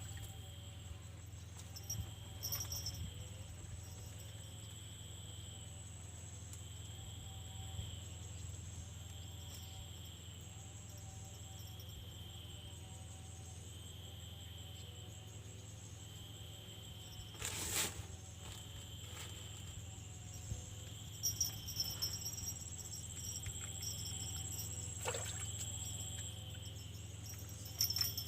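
Insects chirping steadily, a repeating chirp over a constant high-pitched drone, broken twice by a brief sudden sound.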